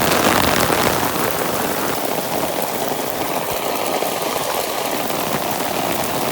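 Heavy rain pouring steadily, the drops pattering on an open umbrella held overhead.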